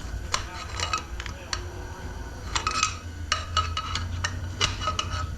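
Snap ring pliers and steel transmission parts clicking and clinking in an irregular series of sharp metal-on-metal ticks with a brief ring, as a snap ring in a 4L60 automatic transmission is worked loose.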